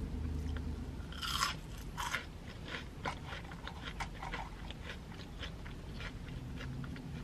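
Crispy Sonic French fries being bitten and chewed close to the microphone: a run of sharp crunches, loudest in the first couple of seconds, then fainter.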